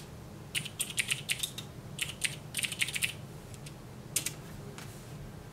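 Typing on an MSX computer keyboard: several quick runs of key clicks, with short pauses between them and a last couple of keystrokes a little after four seconds.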